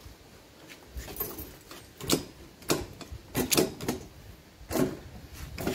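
A series of irregular clicks and knocks, starting about two seconds in.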